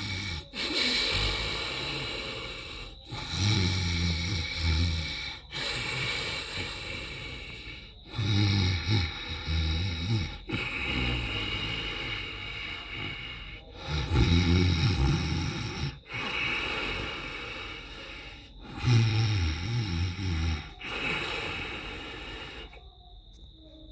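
Sleeping monkey snoring, a low snore drawn in roughly every five seconds with quieter breathing between.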